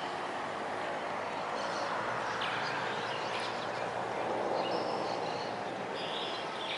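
Steady hiss of outdoor background noise with faint, scattered bird chirps now and then.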